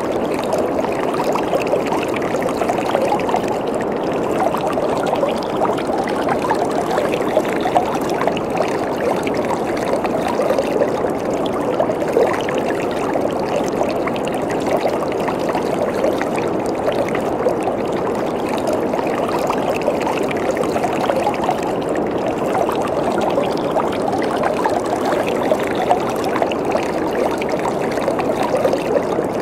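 Waterfall: water falling and splashing in a steady, even rush, mostly mid-pitched with little deep rumble.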